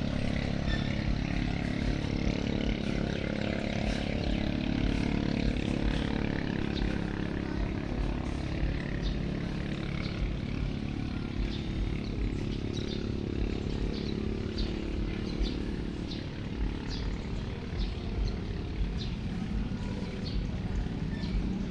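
Boat engine running steadily under way, its pitch drifting down and then back up, with light ticks sounding above it.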